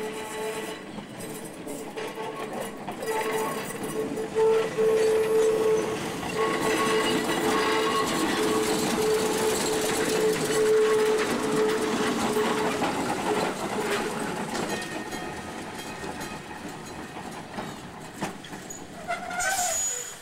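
Los Angeles Railway yellow streetcar running by on its track with a steady whine over a rumble. It is loudest as the car passes close and fades as it moves away.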